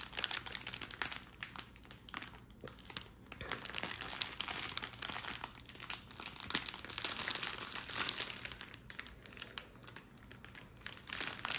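Clear plastic bag crinkling as it is handled and turned in the hands, a bag of rolled-up diamond painting drill packets. The crinkling comes as an irregular run of crackles, busiest in the middle.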